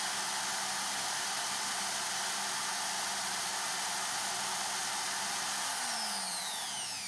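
Ryobi electric drill running at steady speed, spinning a cotton bud tipped with metal polish in a carburettor float valve seat. Near the end the trigger is released and the motor winds down, its pitch falling.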